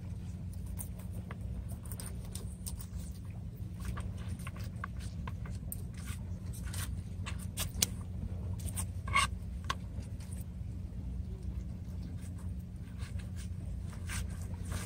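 A knife cutting and scraping a mullet on a plastic cutting board: irregular small clicks and scrapes, a couple louder near the middle, over a steady low rumble.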